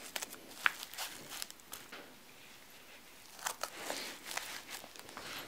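Velcro patch being pressed onto a nylon harness vest: faint scattered crackles and rustles of the hook-and-loop catching, with a denser cluster about three and a half seconds in.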